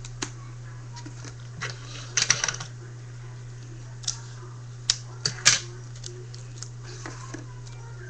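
Rolled paper tubes and sticky tape being handled: scattered sharp clicks and crinkles, with two short crackling bursts about two and five seconds in, over a steady low hum.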